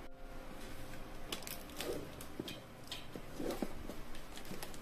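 Taped cardboard parcel being handled: crinkling of packing tape and cardboard, with scattered small clicks and rustles.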